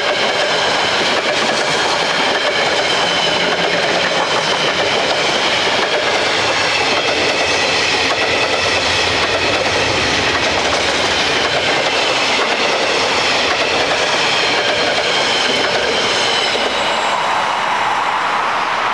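Freight train wagons rolling past, steel wheels running on the rails with a steady high ringing over the rumble. Near the end the last wagon passes and the sound thins out.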